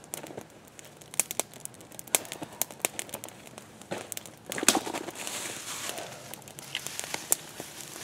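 Small wood campfire crackling, with irregular sharp snaps and pops. A brief, louder rustle of handling comes about halfway through.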